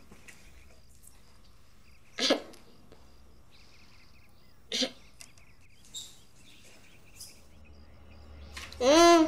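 A girl's short, loud vocal cry near the end, its pitch rising and falling over about half a second, after a few faint brief sounds.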